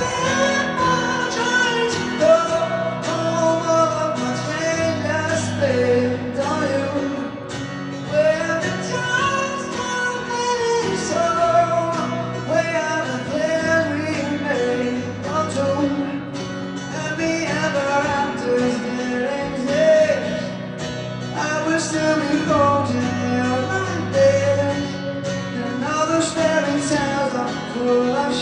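Live acoustic band music: strummed acoustic guitar and sustained bass notes, with a sung melody carried over the top.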